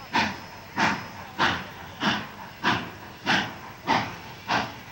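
Santa Fe 3751, a 4-8-4 steam locomotive, chuffing at low speed: eight sharp, evenly spaced exhaust beats, about three every two seconds.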